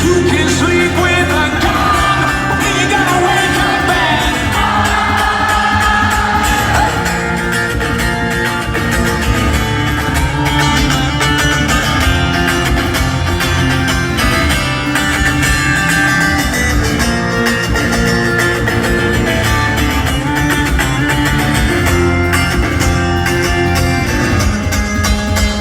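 Loud rock song: singing over electric guitar, bass and a steady drum beat.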